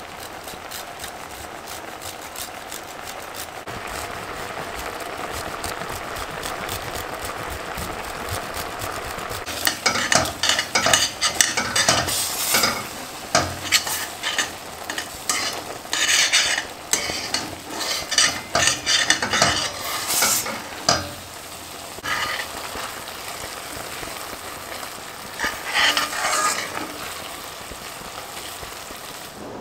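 Pasta simmering in a cream sauce in a stainless steel pot with a steady bubbling sizzle. About ten seconds in, a metal spoon starts stirring and scraping against the pot in quick irregular strokes for about ten seconds, with a second short spell of stirring near the end.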